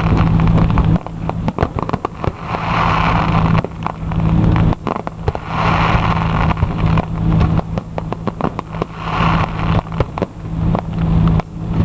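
Fireworks going off: a dense run of sharp crackling pops, with swells of hiss every few seconds, over a steady low hum.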